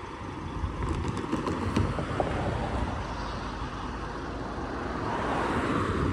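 Amtrak passenger train running: a steady rumble, with a few sharp clicks about a second in, getting louder toward the end.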